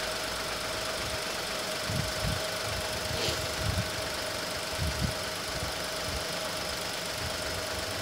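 Volkswagen three-cylinder petrol engine running steadily at idle, with a steady thin whine over it. The engine is firing on all cylinders again now that a faulty coil-on-plug unit has been replaced: the cylinder-3 misfire is cured.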